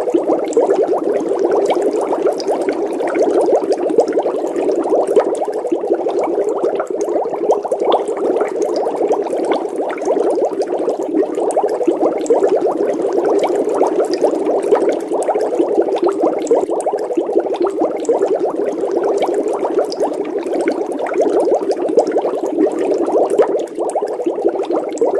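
Water bubbling continuously: a dense, steady stream of small bubble pops.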